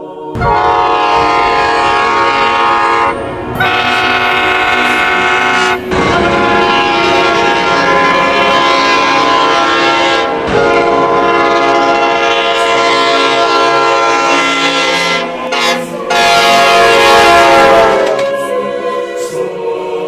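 Nathan K5LA five-chime air horns on Tri-Rail Bombardier Bi-Level cab cars 501 and 507, sounding a string of long blasts with brief breaks between them. The loudest blast comes near the end, then the horn fades out.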